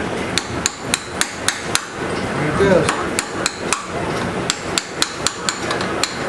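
A hammer strikes a chisel set in the cut slot of a seized front sprocket nut, working to split and free it: sharp metal-on-metal blows with a ringing tone, about four a second, in three runs with short pauses between them.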